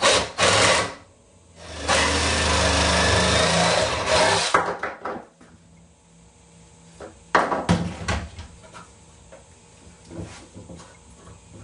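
Reciprocating saw (Sawzall) running for about two and a half seconds from about two seconds in, cutting through the base of a deer antler flush with the burr, then stopping. Short handling knocks and clatter come before and after the cut.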